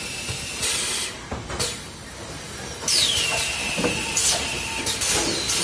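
Automatic carton case packer running, its pneumatic valves and cylinders venting compressed air in hisses: two short bursts, then a longer hiss of about two seconds starting about three seconds in, with a whistle that falls in pitch and then holds steady. Light mechanical clacks run underneath.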